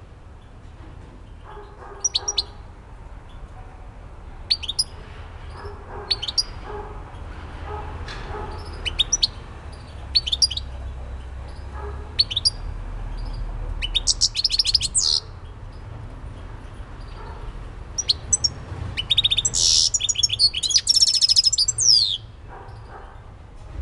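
European goldfinch singing in its cage: separate short sharp notes for the first half, then a rapid twittering phrase about halfway through and a longer, louder one about two-thirds of the way in.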